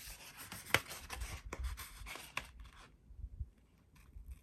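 Paper rustling and rubbing as small paper and sticker pieces are handled on a journal page, with one sharp tap about three quarters of a second in; the handling dies away after about three seconds.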